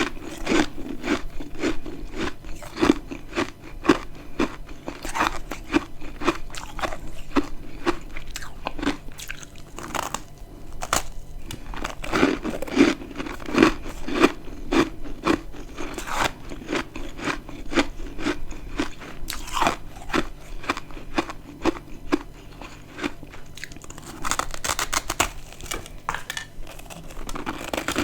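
A person biting and chewing dry, crispy chunks of freezer frost: a steady run of crunches, about two to three a second.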